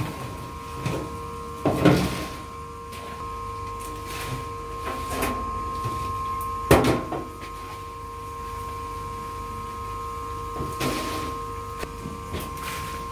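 Plastic baskets being handled, knocking and clattering against each other and the steel vat now and then, with one loudest knock about seven seconds in. Underneath is a steady machine hum with a low rumble from the boiling equipment.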